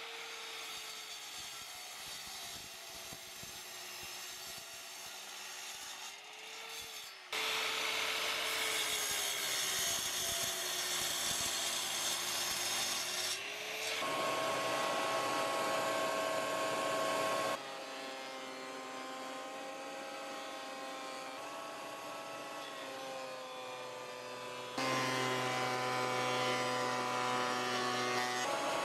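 Electric miter saw cutting an acacia handle blank, its motor whine sagging in pitch under load; then, from about halfway, a benchtop thickness planer running and planing the board, louder near the end as the board feeds through the cutter head.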